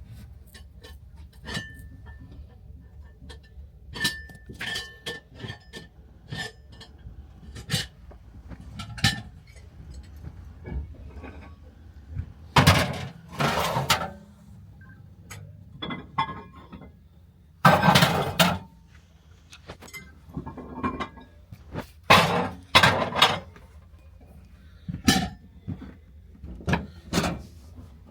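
Irregular metallic clanks and knocks, some of them ringing briefly, from the stopped sleeper train as it is worked on for the gauge change at the border. The loudest bangs come a little under halfway through and again about two-thirds through, over a low steady rumble.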